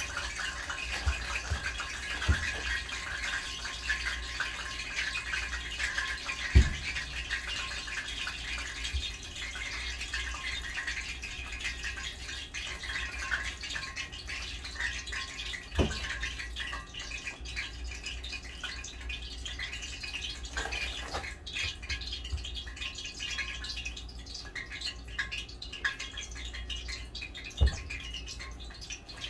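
A pot of cabbage simmering on the stove, giving a steady fine bubbling crackle over a low hum, while a plastic bag of frozen chicken wings crinkles in hand; three sharp knocks fall about a third of the way in, halfway through and near the end.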